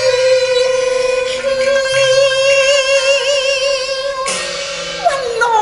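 A woman holding a long sung note with vibrato in a Cantonese opera song, over Chinese instrumental accompaniment. About four seconds in the held note gives way to sliding, falling melodic phrases.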